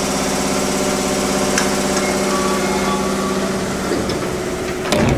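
Steady mechanical drone with a fast rhythmic pulse from the underfloor equipment of a Tokyu 8500 series train, heard inside the car, holding one pitch throughout. A sharp knock comes at the very end.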